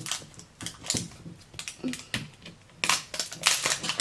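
Crackling and crinkling of toy packaging as it is handled and torn open, in a run of short irregular crackles, loudest about three seconds in.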